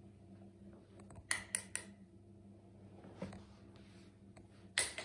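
A few light, sharp taps and clicks during cat play on a jute rug and wooden floor: three quick ones in a row about a second in, a softer one later and a louder one near the end, over a faint steady room hum.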